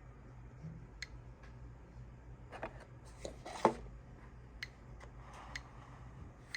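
Short, irregularly spaced clicks from a Geiger counter registering radiation counts from a smoke detector's americium source. Rubbing and handling noise in the middle ends in a sharp knock, the loudest sound.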